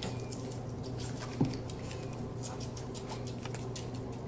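A piglet suckling on a baby bottle: soft, irregular little smacking clicks, with one louder low thump about a second and a half in.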